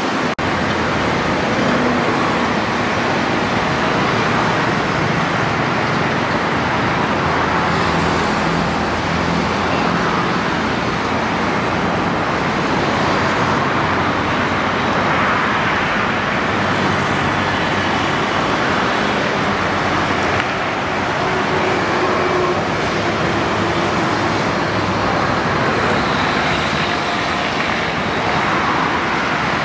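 Steady roar of a Boeing 737-800 airliner's jet engines on final approach, with a faint high whine in the second half.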